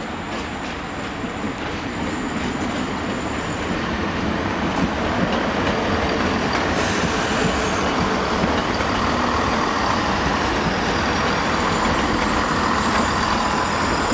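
Peppercorn A1 Pacific steam locomotive 60163 Tornado coming slowly toward the listener over station pointwork. Its steady running noise grows louder over the first few seconds, then holds.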